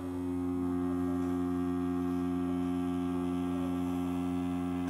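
Tattoo machine running steadily with its needle lining in practice skin: an even, pitched hum. This steady running is the sound the artist waits for, the sign that the needle is doing what it is supposed to.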